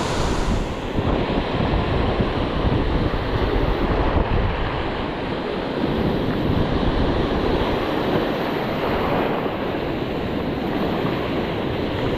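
Ocean surf washing in, rising and falling in slow swells, with wind blowing on the microphone.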